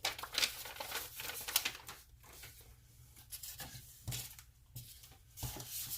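Paper instruction manuals and packaging being rustled and shuffled by hand, with a couple of soft knocks as things are set down about four and five and a half seconds in.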